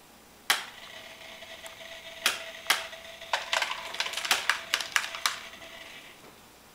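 Automatic cat feeder switching on with a click, its small motor running with a steady hum for about five seconds while dry food rattles out in a run of sharp clicks, then stopping.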